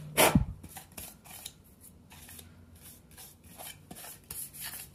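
A distributor cap being handled and turned over by hand: a sharp knock about a quarter second in, then faint scattered clicks and rubbing.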